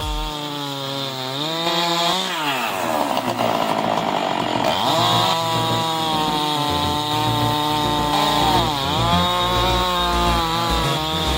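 Husqvarna 390 XP two-stroke chainsaw running while cutting a large log. Its engine pitch dips and climbs back about two seconds in and again near the end.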